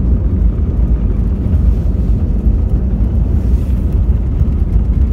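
Steady low rumble inside the cabin of an Airbus A320 rolling along the runway after landing: engine noise mixed with the wheels running over the pavement.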